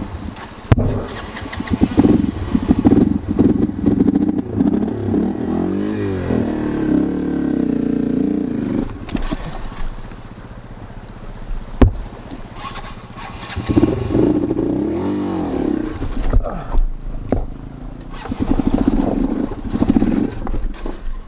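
Small single-cylinder Yamaha dual-sport motorcycle engine pulling along a rocky trail, revving up and down in bursts with quieter off-throttle stretches between. A couple of sharp knocks come through, about a second in and near the middle.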